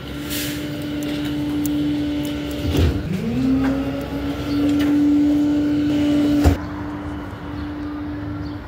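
Peterbilt garbage truck with a New Way body, its engine and hydraulic packer running with a steady whine. The pitch sags and recovers about three seconds in, and knocks come about three and six and a half seconds in. After the second knock the whine gets quieter.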